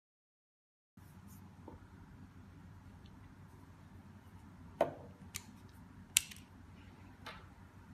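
A few sharp clicks and taps from a smart lock's lever handle being handled and fitted, over a low steady hum; the sound comes in about a second in.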